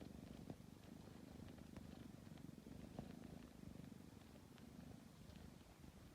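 Tabby cat purring quietly and steadily, a low pulsing rumble, with a few faint clicks.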